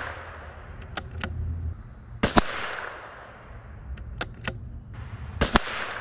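.22 LR rifle firing two shots about three seconds apart, each trailing off in a short echo. A few light clicks come between the shots as the bolt is cycled.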